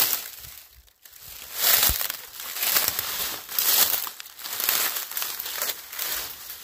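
Dry brush, vines and leaves crackling and rustling in irregular bursts as someone pushes through thick undergrowth on foot.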